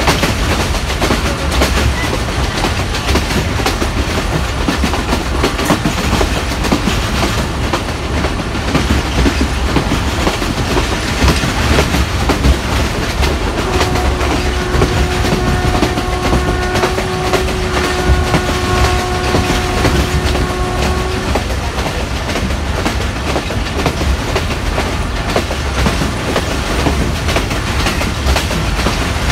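Passenger train running at speed, heard from inside a coach: steady wheel rumble and clickety-clack on the rails. A little under halfway in, the locomotive sounds one long steady horn blast of about seven seconds.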